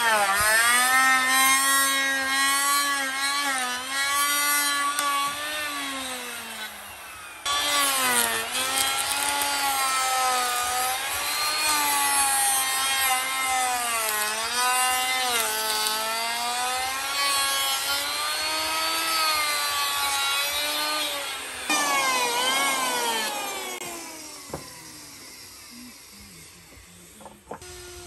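Handheld electric router cutting wood, its motor whine dipping and rising in pitch as the bit loads and unloads in the cut. The sound breaks off abruptly about seven seconds in and starts again, then winds down in a falling whine a little after twenty seconds, leaving only faint knocks of boards being handled near the end.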